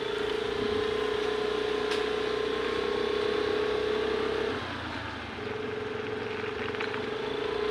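A steady, even-pitched motor hum in two long stretches, with a break of under a second a little past the middle.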